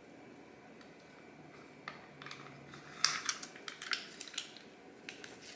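Plastic food packaging crinkling and rustling in hands, with a few light clicks from about two seconds in and a dense patch of crackling a second later.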